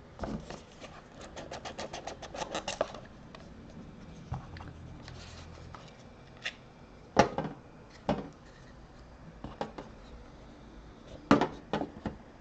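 A small cardboard trading-card box being opened and a stack of cards taken out by hand: a quick run of clicks that speeds up over the first few seconds, then a few sharp taps as the box and cards are set down on a metal tin.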